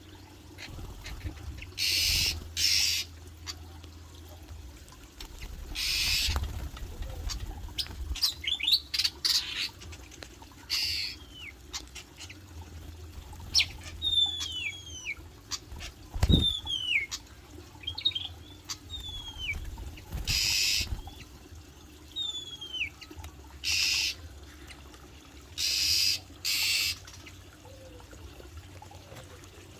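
Asian fairy-bluebird (cucak biru) calling in short, falling whistled notes in a string through the middle, among several brief rushing bursts of noise and one dull thump.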